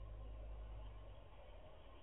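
Faint steady background hiss with a low rumble that fades out about a second in. No distinct sound from the squirrel or anything else.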